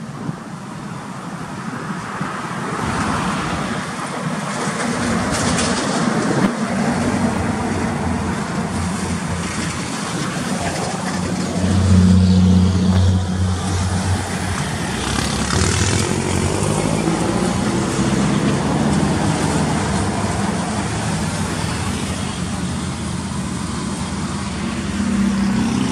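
Volvo FH cattle truck's diesel engine under load as the truck drives off, loudest about halfway through, then the engine note climbing as it accelerates, over tyre and road noise.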